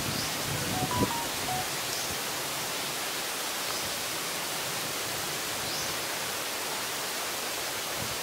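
Steady, even hiss of outdoor background noise, with a few faint short notes and a soft knock about a second in.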